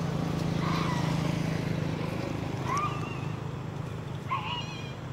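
Baby macaque giving short squeaky calls that rise and fall in pitch, two clear ones in the second half. Under them is a low steady motor drone that fades out about two seconds in.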